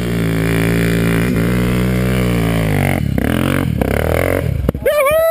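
Dirt bike engines: first a steady running engine whose pitch wavers slightly, then, about three seconds in, a dirt bike revving hard as it climbs a loose dirt hill, its rear wheel throwing dirt.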